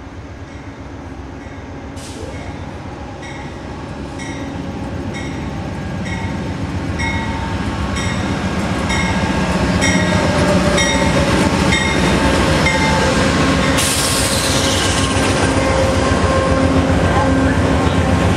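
Amtrak P42DC diesel locomotive with GE 16-cylinder engine hauling a passenger train, approaching and rolling past at low speed as it pulls into a station, growing steadily louder over the first half. A bell rings steadily about one and a half times a second through most of the approach. A sharp hiss starts about 14 seconds in as the cars roll by.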